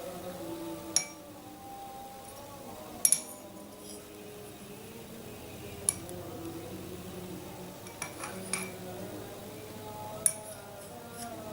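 A metal spoon clinking against a glass several times, each clink short and sharp with a bright ring, spread irregularly and one of them doubled, over soft background music.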